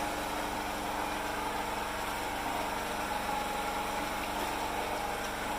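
Small engine running steadily at a constant idle, an even hum with no change in speed.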